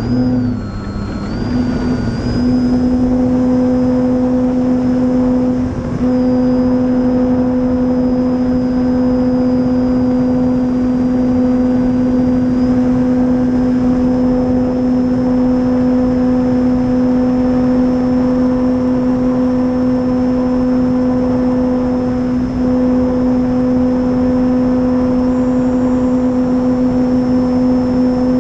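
Dualsky 480 brushless electric motor and propeller of an RC warbird, heard from on board, running at a steady high throttle with a constant whine. The pitch shifts in the first couple of seconds, then holds with only slight steps, over rushing air noise.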